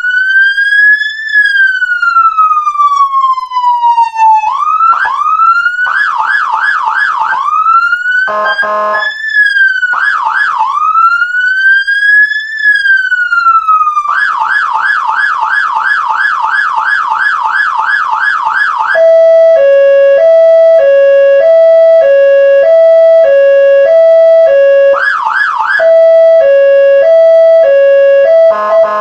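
Whelen Alpha 12 electronic siren running through its tones. A slow wail rises and then falls away over about four seconds, followed by a fast yelp, a brief horn blast, the wail again and the yelp again. For the last ten seconds it plays a hi-lo two-tone, switching back and forth between two notes about every half second, with a short burst of yelp partway through.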